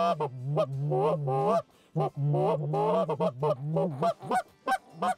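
Goose call blown with the voice to make the murmur, a rolling series of low, moaning goose notes, the content chatter of geese at rest. It runs as a continuous growl, breaks briefly under two seconds in, runs on, and near the end turns choppier into separate short notes about three a second.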